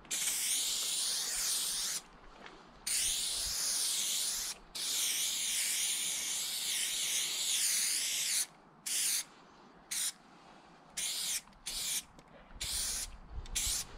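Aerosol spray paint can spraying onto a freight tank wagon: a loud hiss in three long strokes over the first eight seconds, then about six short bursts as the nozzle is pressed and released.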